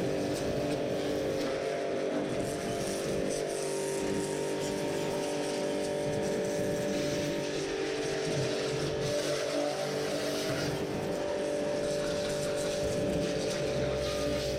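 Pressure washer running steadily: a constant motor drone under the hiss of the water jet.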